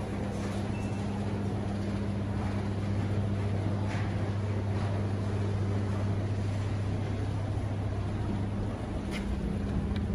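Steady low machinery hum over a rumbling background, with a few faint clicks as the stainless-steel lift doors slide shut and the call button is pressed.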